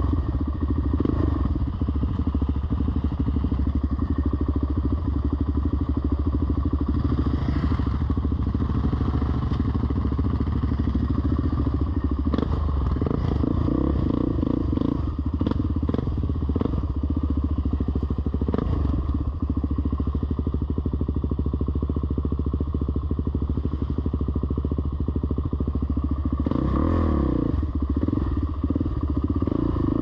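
Off-road vehicle engine running steadily while riding a rough trail, with scattered clatter and knocks in the middle and a brief rev near the end.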